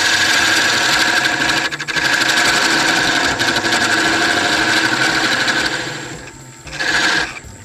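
Parting tool cutting a sizing groove into a spinning wooden spindle on a wood lathe: a loud, steady scraping whine that dies away about six seconds in, then a short second cut near the end.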